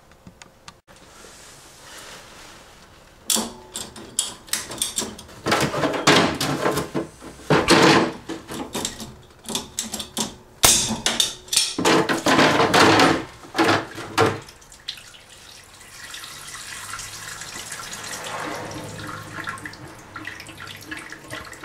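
Water from a household plumbing line gushing and sputtering in irregular bursts, then running more steadily and softly.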